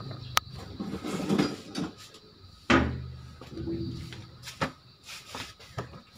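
Clatter of someone rummaging for a tool: a sharp click, a stretch of rustling, one loud knock about three seconds in, then a few lighter knocks and clicks near the end.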